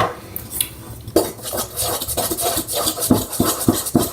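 A fork stirring glue slime in a bowl, scraping and clinking against the bowl in quick repeated strokes, starting about a second in.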